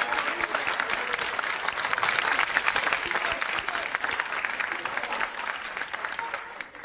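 Studio audience applauding after a song, a dense patter of many hands clapping that dies away near the end.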